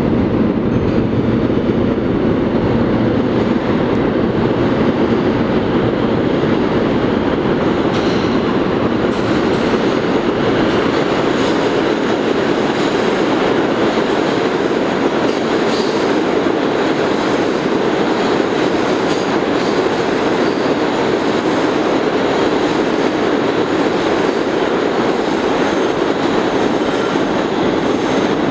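R160 subway train running through the station on the express track without stopping: a loud, steady rumble of steel wheels on rail, with clicking over the rail joints and brief high wheel squeal around the middle.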